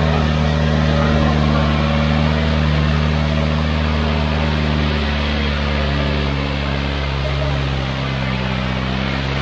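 Powertrac Euro 60 tractor's diesel engine running hard under heavy load, pulling a double disc harrow through deep sand. Its note drops lower about two-thirds of the way through as the load drags it down.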